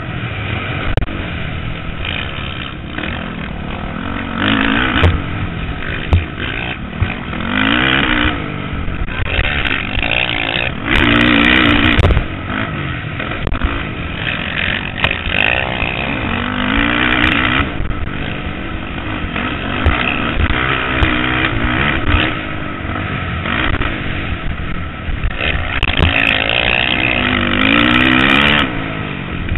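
Motocross bike engine heard from the rider's helmet, revving up and easing off again and again as he rides the track, with louder full-throttle stretches about midway and near the end.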